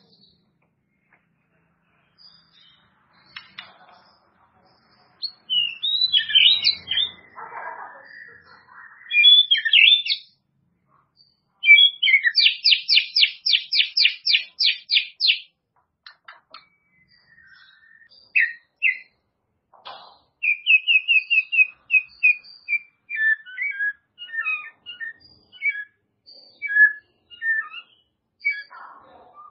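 White-rumped shama (murai batu) singing in separate phrases of clear, varied whistles with pauses between. About halfway through comes a fast run of a dozen or so evenly repeated notes, and later strings of quick, short notes.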